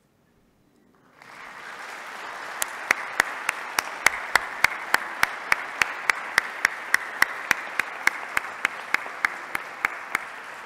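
Audience applauding, starting about a second in, with sharp, even claps about three a second standing out above the general clapping.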